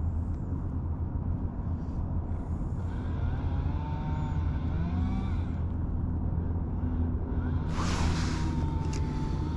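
Steady low outdoor rumble, with a short whoosh about eight seconds in.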